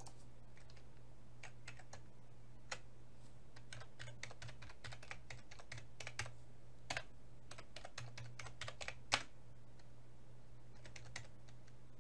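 Typing on a computer keyboard, quick irregular key clicks in bursts with a short pause near the end, over a faint steady low hum.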